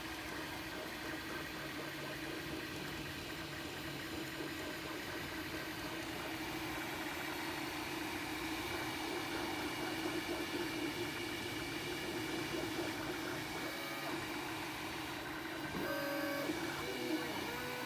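Desktop 3D printer running, its stepper motors making a steady hum, with rising and falling whines from the motors' moves near the end.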